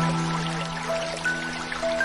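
Slow ambient background music: held low notes with a few single higher notes, over a steady hiss of noise.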